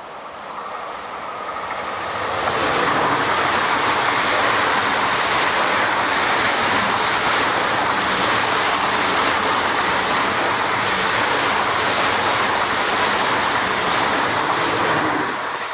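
ICE 4 high-speed electric train passing close by at speed: a rushing noise of wheels and air that builds over the first two or three seconds, holds steady while the coaches go by, and falls away near the end.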